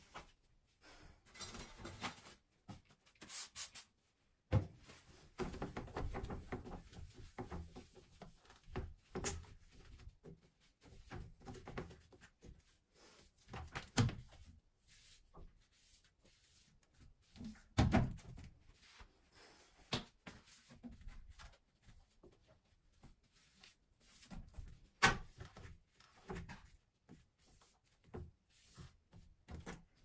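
A cloth rubbing over a ceramic toilet and its plastic seat, broken by about five sharp plastic knocks as the toilet seat and lid are lowered and lifted.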